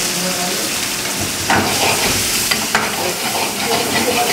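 Sliced onions sizzling in hot oil in a wok while they are stirred with a steel ladle, which scrapes and knocks against the pan a few times.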